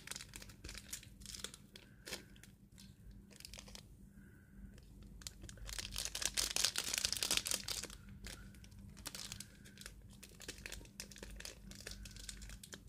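Small plastic glitter packets crinkling and rustling as they are handled and shaken out over a plastic bowl, with the densest, loudest crackling about six to seven and a half seconds in.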